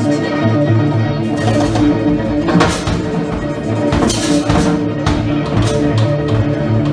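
Live band playing: held instrumental notes over drums, with several cymbal crashes.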